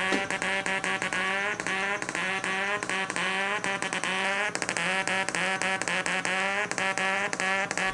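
Buzzy electronic tone from a 555-timer sound-effect circuit played through a small speaker. It warbles up and down in pitch over and over, broken by rapid clicks.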